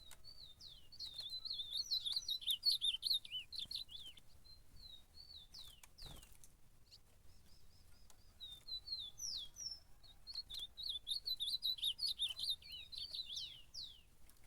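Ultramarine grosbeak (azulão) singing in a territorial contest: two long bouts of fast, high warbling notes, separated by a pause of a few seconds with only a few short notes. A brief click comes in the middle of the pause.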